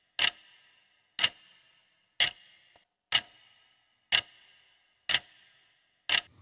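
Clock-ticking sound effect counting down the seconds of a quiz answer timer: seven sharp ticks, one a second, each with a short ringing tail.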